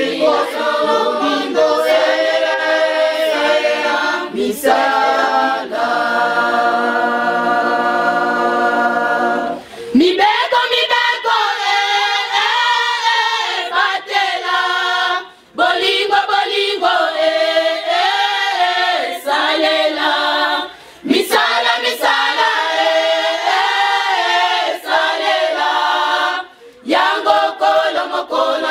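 Church choir singing a hymn a cappella, with a long held chord about six seconds in and short pauses between phrases.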